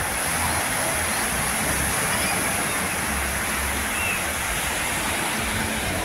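Small sea waves breaking and washing up a sandy shore: a steady rush of surf.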